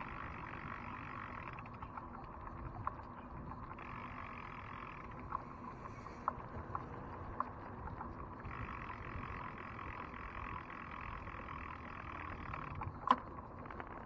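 Riding noise from a moving bicycle: a steady rush of road and wind noise, with scattered sharp clicks and one louder knock near the end.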